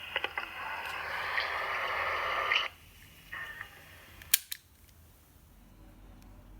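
Tape hiss playing from a Sony M-100B microcassette recorder's small speaker, cutting off suddenly under three seconds in, followed about a second and a half later by one sharp click of a recorder's button.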